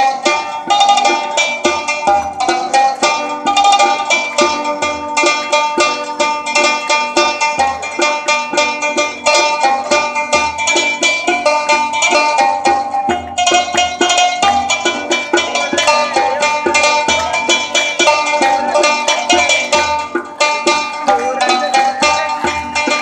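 Pashtun rabab and tabla playing a traditional tune: a quick stream of plucked lute notes over tabla strokes.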